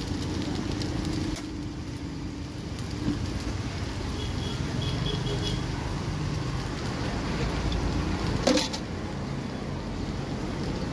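Steady low rumble of street traffic, with a single sharp clack about eight and a half seconds in.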